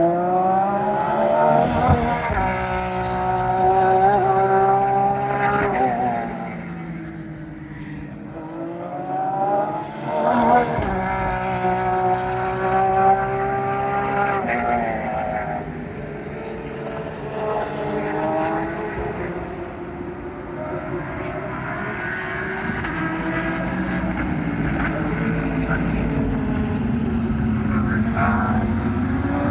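GT3 race car engines at racing speed, several cars passing one after another; each pass rises and falls in pitch as they come and go.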